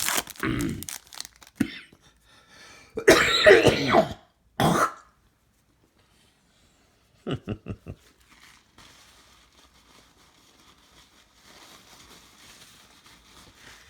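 A man coughing hard from a bad chest cold. There is a harsh cough near the start, the loudest bout about three seconds in with another just after it, then a quick run of short throat-clearing coughs around eight seconds.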